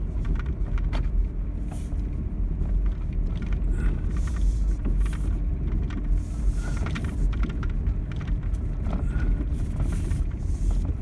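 Truck driving: a steady low engine and road rumble, with scattered rattles and knocks and a few brief squeaks.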